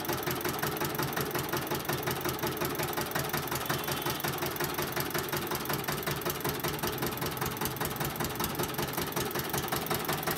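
Motor-driven sugarcane juice crusher running steadily with a fast, even pulsing beat while its ribbed steel rollers crush cane.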